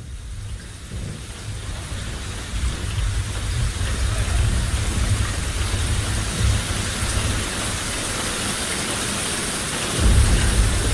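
Steady rain hiss fading up over the first few seconds, with a deep low rumble beneath it that swells about ten seconds in.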